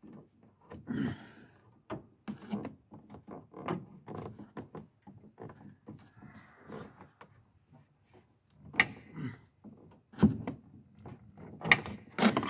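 Hand tools and metal parts knocking, clicking and scraping irregularly during work on a car's clutch master cylinder, with a few sharper clacks near the end.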